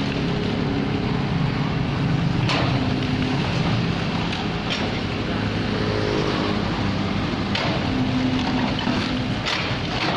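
Komatsu PC78UU mini excavator's diesel engine running steadily under load while its bucket breaks down a masonry wall, with a few sharp knocks of falling rubble.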